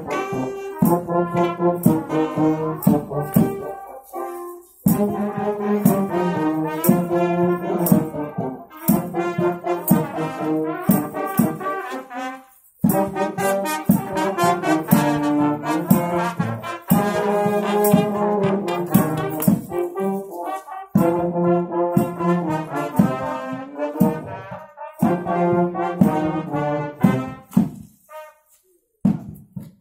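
Youth marching brass band, with tubas, euphoniums and trumpets, playing a march in short phrases that stop briefly and start again several times, with drum beats keeping time.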